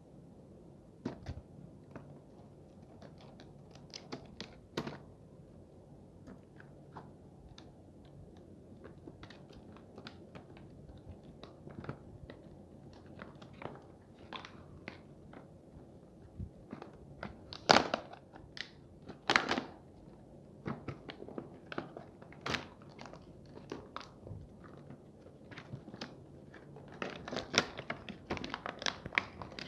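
A hard plastic blister pack being cut with scissors and pulled apart by hand: scattered clicks and crackles of the stiff plastic, two loud sharp snaps a little past the middle, and a busy run of crinkling near the end.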